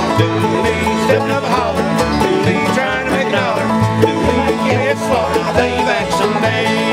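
Acoustic bluegrass band playing live: mandolin, acoustic guitar and upright bass, with a plucked bass line stepping between notes about twice a second.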